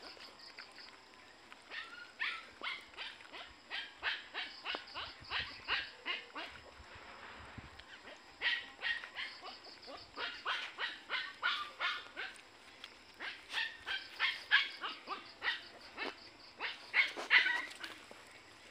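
A puppy lapping and licking food off a plastic lid: quick wet smacking licks, several a second, in runs broken by short pauses.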